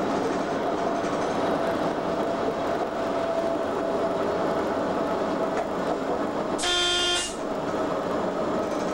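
Cab of a British Rail Class 87 electric locomotive at speed: steady rumble of wheels on rail and running gear, with a faint steady tone. A little before the end a single-note horn toot sounds once, lasting under a second.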